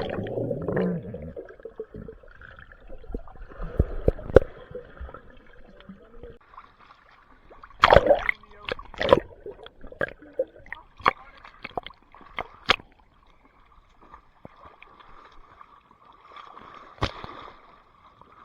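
Swimming-pool water splashing and sloshing in irregular bursts, with several sharp splashes.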